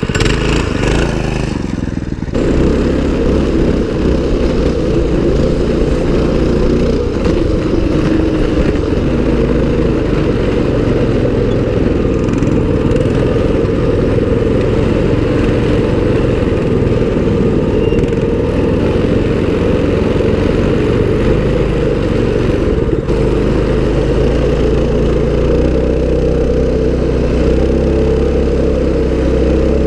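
Mini bike engine running steadily while the bike is ridden, heard close up from the bike. It picks up about two seconds in.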